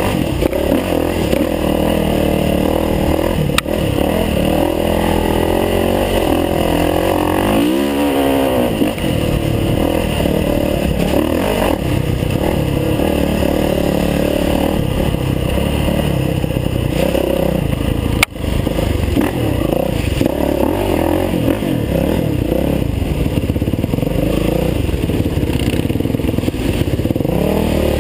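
Dirt bike engine revving up and down continuously under throttle, heard from on the bike while it rides a rough trail, with a quick rev climbing in pitch about eight seconds in. Two brief clicks stand out, about four and eighteen seconds in.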